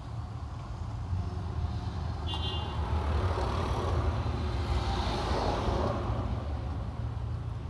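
Background road traffic: a steady low rumble that swells in the middle as a vehicle passes, with a short high beep about two seconds in.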